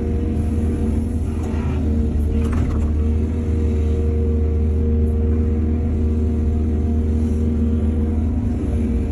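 Excavator's diesel engine running at a steady pitch, with two brief noises over it about one and a half and two and a half seconds in.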